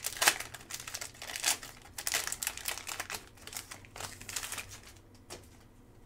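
Trading card pack wrapper crinkling and rustling in the hands as a pack is opened and its cards handled, in irregular crackles that thin out near the end.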